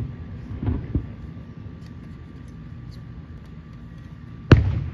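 Aerial fireworks display: a couple of faint thumps about a second in, then a loud shell-burst bang near the end that rumbles on afterwards.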